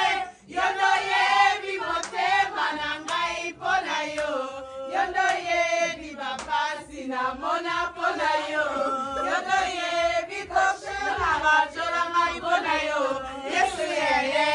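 A group of people singing a chant together, many voices at once in short rhythmic phrases.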